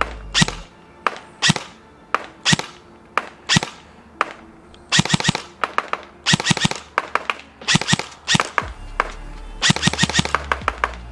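Evolution Airsoft Reaper XS electric airsoft gun (AEG) firing on semi-automatic. Single shots come at about two a second, then from about five seconds in the shots come in quick rapid strings.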